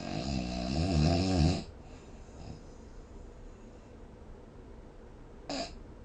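A person snoring: one loud snore with a wavering, buzzing pitch lasting about a second and a half, then a short snort near the end.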